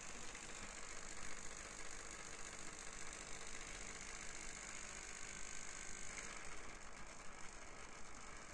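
Homemade electromagnetic oscillator engine with copper coils, driving a paper-winged robotic insect: a steady, fast mechanical rattle as the coils vibrate the frame and flap the wings.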